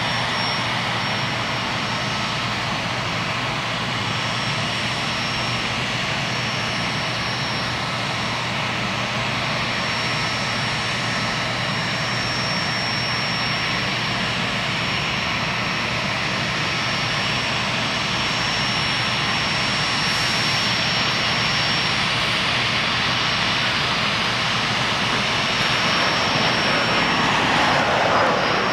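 Learjet 60 business jet's twin turbofans at takeoff power: a steady jet rush with a thin high whine, growing slowly louder as the jet runs down the runway, lifts off and climbs toward the microphone. Near the end it peaks and the pitch sweeps downward as the jet passes by.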